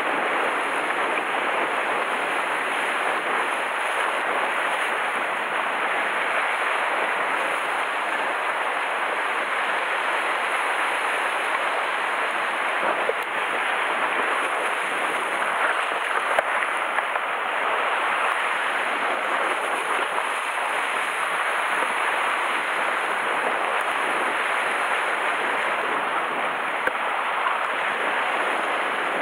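Sea waves breaking and washing against a rocky shore: a steady, even hiss of surf.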